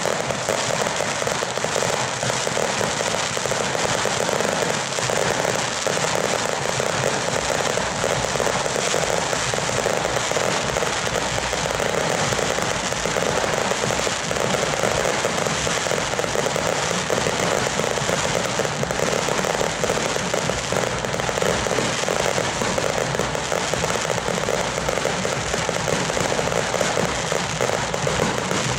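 Ground fireworks going off in a dense, unbroken crackle of rapid small bangs, steady and loud throughout.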